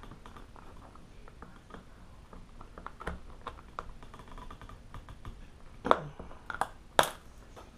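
Light plastic clicks and rattles from hands working the zip tie on a small plastic case, with a few louder, sharp snaps near the end.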